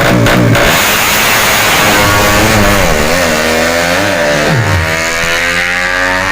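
Tuned 200 cc moped-class drag-race motorcycles revving hard down the strip. The engine pitch climbs through the gears, with brief dips at the shifts about three and four seconds in. Near the end one engine's pitch drops steeply away.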